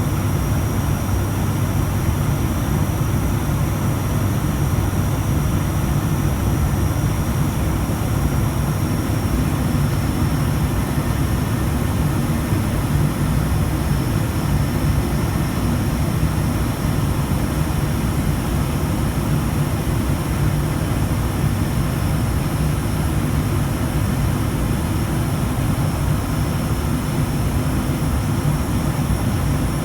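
ATR 72 turboprop engines and propellers running steadily: a constant low drone with a thin, steady high whine over it.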